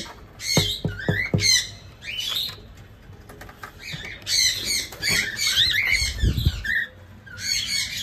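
Small parrots squawking and chattering in repeated bursts of high-pitched calls, a few knocks about a second in, and a dull thump near the sixth second.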